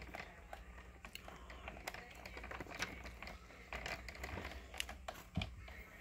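Faint scattered clicks and rustles of a Dirt Devil Dynamite upright vacuum cleaner being handled, its motor not running.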